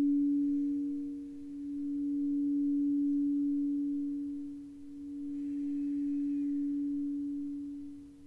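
A sustained pure low tone for meditation, with a fainter higher overtone, swelling and fading about every three and a half seconds.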